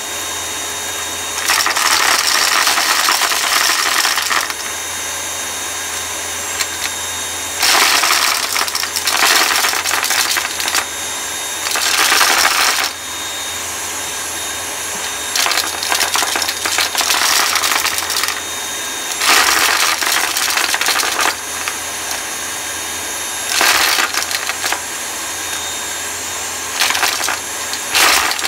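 Vacuum cleaner running steadily while sucking up hard, crunchy debris, which rattles and crackles loudly through the machine in repeated bursts of a second or two, every few seconds.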